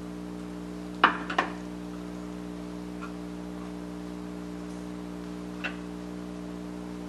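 Two sharp knocks on a wooden cutting board about a second in, then a faint tick near the end, over a steady low hum.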